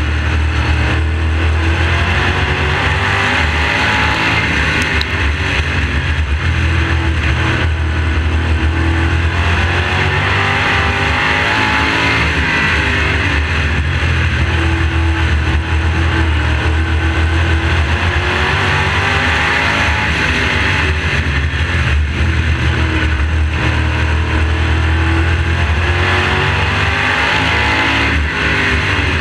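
Modified race car's V8 engine at racing speed, heard up close from on board. The engine note rises on the straights and drops off in the turns, lap after lap, over a constant low drone.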